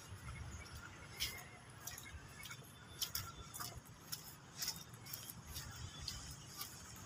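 Faint walking sounds: irregular light clicks and clinks, about two a second, as someone walks on wet stone paving, over a low rumble.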